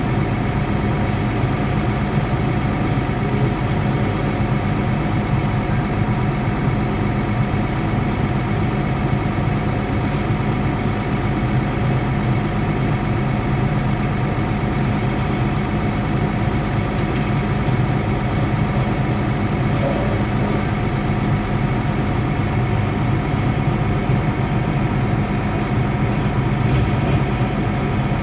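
Caterpillar D6 dozer's diesel engine idling steadily, heard from inside its cab.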